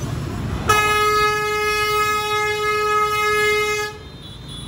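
A container truck's horn sounding one steady, unbroken note for about three seconds, starting under a second in and cutting off near the end, over the low rumble of street traffic.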